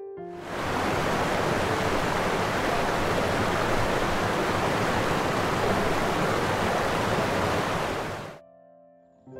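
Steady rush of running water, an even hiss with no rhythm, that sets in just after the start and fades out near the end, when soft piano music comes back in.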